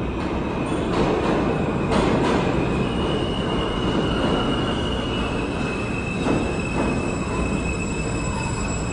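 New York City Subway F train pulling into an underground station: a steady rumble of steel wheels on rail, with high thin wheel squeal that shifts pitch midway and a few sharp knocks.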